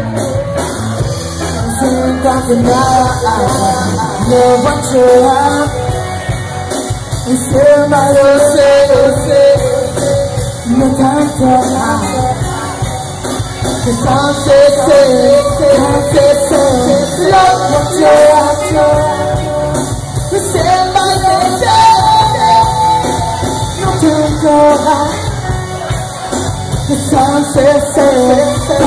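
Live rock band playing: a singer over electric guitars and a drum kit, recorded from the audience.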